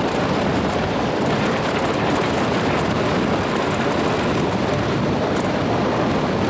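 Steady rushing noise of a ferry under way, with wind and the ship's running noise and no distinct events.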